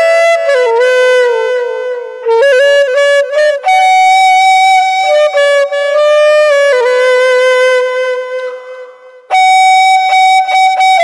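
Background music: a melody on a wind instrument in long held notes with a few quick note changes. It fades down near the end and comes back in abruptly.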